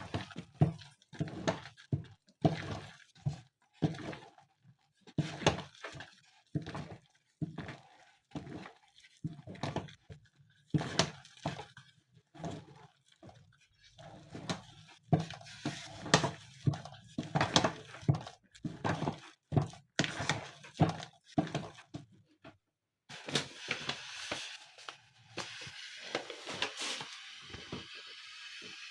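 Repeated thuds and knocks of a utensil working food in a cooking pot, about two a second with short pauses. After a break near the end, a steadier rushing noise with light clatter.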